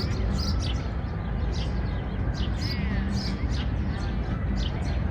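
Small birds chirping busily, short falling chirps several times a second with a brief warbling trill about halfway through, over a steady low city rumble.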